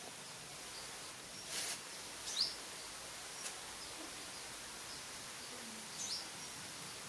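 Outdoor ambience of small birds chirping over a steady background hiss, with two short falling chirps standing out, the louder one about two and a half seconds in. A brief rustle comes about a second and a half in.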